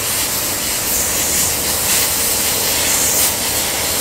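Compressed-air blow gun on a coiled air hose hissing steadily as it blasts dust off a vehicle's body.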